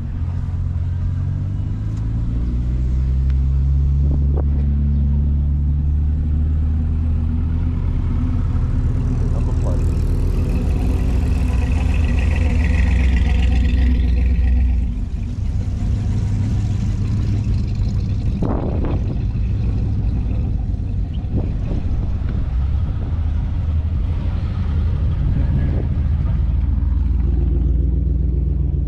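Car engine running with a heavy low rumble, its pitch gliding in the first few seconds and then holding steady, easing off a little about halfway through.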